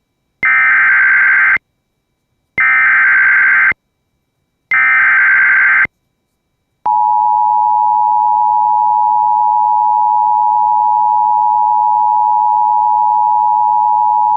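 Emergency Alert System tones announcing a severe thunderstorm warning. First come three SAME header data bursts, each a harsh digital warble about a second long. About seven seconds in, the steady two-tone EAS attention signal starts and holds.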